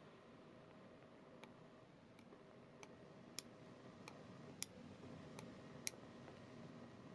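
Flashlight push-button switches clicked about eight times in quick irregular succession from about a second and a half in, switching the lights on and off in ultra-low moon mode.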